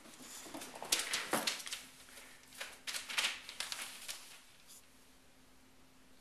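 Newspaper rustling and crinkling under a golden Labrador puppy moving about on it, in several irregular bursts that die away about three-quarters of the way through.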